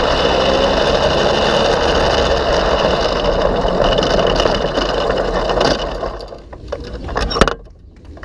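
Go-kart engine running hard with wind noise over the onboard microphone, then cutting out about six seconds in as the kart coasts to a stop. A single sharp knock comes shortly before the end.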